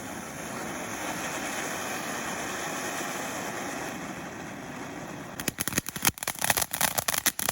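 Small novelty fountain firework spraying sparks with a steady hiss. About five and a half seconds in it switches to a rapid string of sharp crackling pops that stops suddenly near the end.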